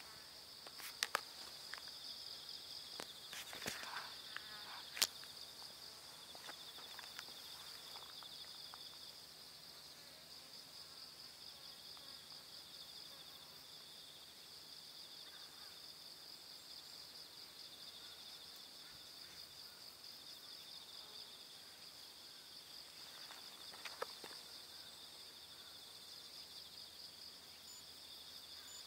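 Steady high-pitched trilling of insects, with a few sharp clicks or knocks in the first five seconds and another near the end.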